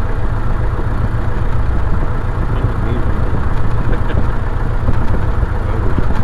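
Piper Cub's piston engine and propeller idling with a steady low throbbing, heard from inside the cockpit.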